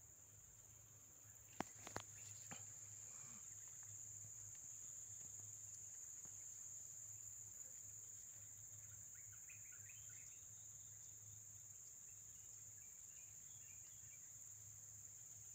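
A steady, high-pitched insect chorus, with three sharp clicks about a second and a half to two and a half seconds in.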